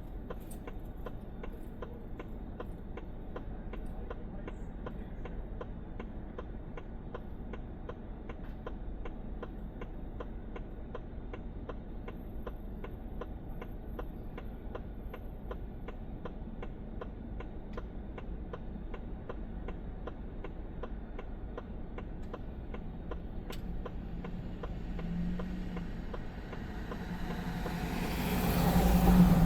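Steady rapid ticking, about two or three ticks a second, over a low rumble; the ticking stops a little before the end. Then a motor vehicle's engine hum grows louder and swells near the end.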